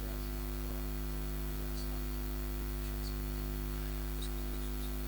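Steady electrical mains hum and hiss from the open microphone and sound system, with a few faint high chirps.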